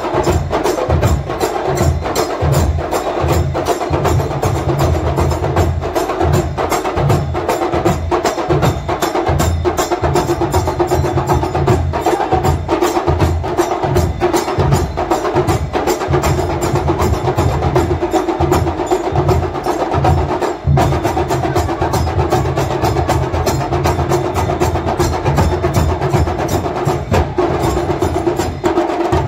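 Traditional Goan Shigmo romtamel folk percussion: drums beaten in a fast, driving rhythm with sharp clacking and metallic strikes, over a steady held tone.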